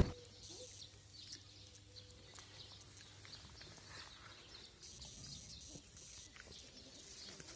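Quiet outdoor ambience: a faint steady low hum with a few faint, soft ticks and clicks.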